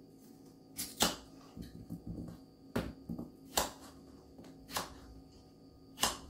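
Kitchen knife slicing through a potato and knocking on a wooden cutting board: about five sharp cuts roughly a second apart, with softer ticks between them.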